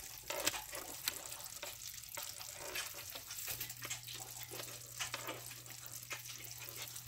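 A mass of live crawfish crawling over one another, their shells, legs and claws making an irregular crackling of small clicks.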